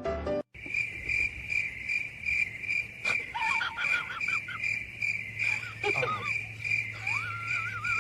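Cricket chirping, a steady high pulsed chirp about two to three times a second, with a few wavering whistle-like calls over it in the middle and near the end.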